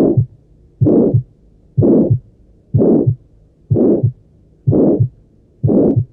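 Heartbeat heard through a stethoscope, about one beat a second. On each beat a murmur swells and fades between the first and second heart sounds: the crescendo-decrescendo systolic ejection murmur of aortic stenosis, from a narrowed aortic valve orifice. Seven beats are heard.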